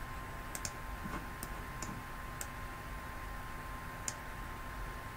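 Computer mouse clicking a few scattered times, including a quick double click about half a second in and a sharper click about four seconds in, over a faint steady electrical hum.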